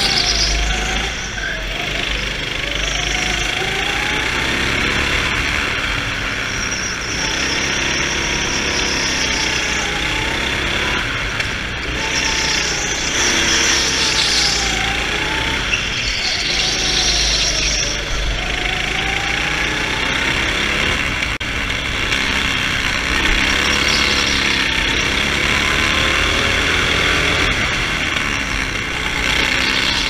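Go-kart engine at speed, its pitch rising and falling again and again every few seconds as the throttle is opened and eased through the corners, over a steady rush of wind and road noise.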